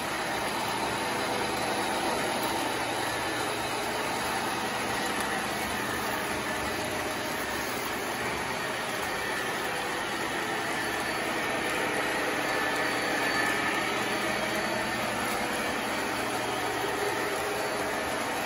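Small electric drive of a model operating car wash accessory running steadily as it moves the model car along its track. It makes an even mechanical hum and hiss with faint steady tones and no sudden events.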